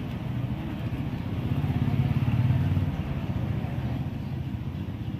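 Low vehicle engine rumble from passing street traffic. It swells to its loudest about two and a half seconds in, then eases off.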